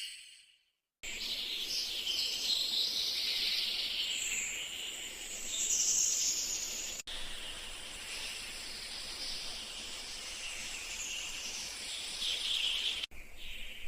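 Many birds chirping and calling together over a steady high hiss, starting about a second in, with two abrupt cuts in the recording.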